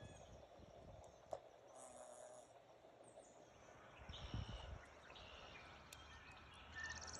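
Near silence: faint outdoor ambience with a few brief bird calls.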